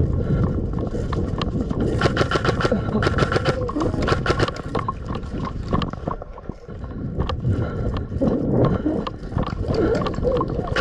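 Airsoft guns firing in rapid bursts, quick sharp cracks in clusters a couple of seconds long, over a steady low rumble on the microphone.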